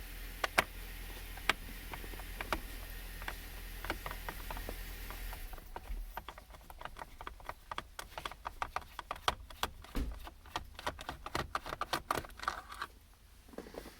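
Ratcheting screwdriver clicking as Phillips screws are backed out: irregular clicks at first, over a steady low hum, then quicker, denser runs of clicks after about six seconds once the hum drops away.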